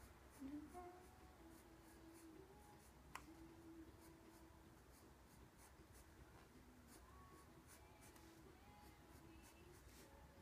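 Graphite pencil scratching faintly on sketchbook paper in many short, quick strokes, drawing feather lines.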